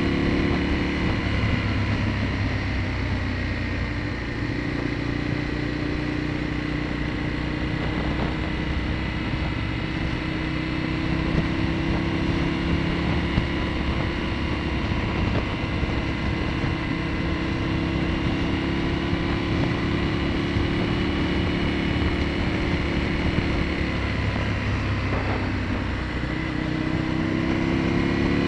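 Aprilia Tuono motorcycle engine running steadily at road speed, heard from on the bike. Near the end its note drops and then climbs again.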